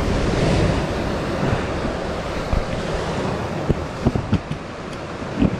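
Ocean surf breaking and washing on a rocky shore, with wind buffeting the microphone. A few sharp knocks sound in the second half, the loudest near the end.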